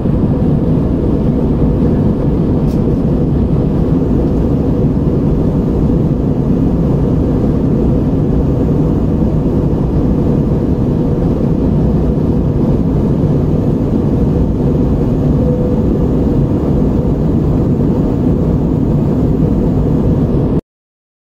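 Steady cabin noise inside a jet airliner in cruise: engines and rushing air, deep and even, with a faint steady hum. It cuts off suddenly near the end.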